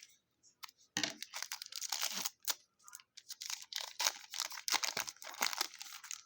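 Plastic-foil trading card pack wrapper crinkling and tearing as it is handled and opened, a run of irregular crackles starting about a second in.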